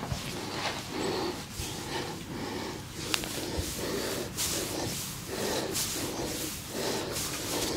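Rhythmic massage strokes of hands working over skin, a rustling swish repeated about one and a half times a second.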